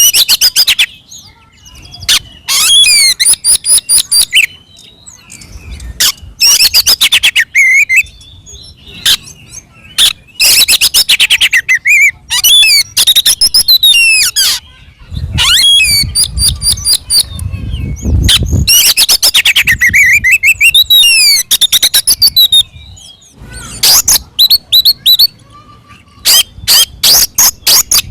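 Oriental magpie-robin singing loudly in aggressive, territorial 'fighting' mode. Its song runs in quick phrases that mix rapid rattling trills with sliding whistles, with short pauses between them.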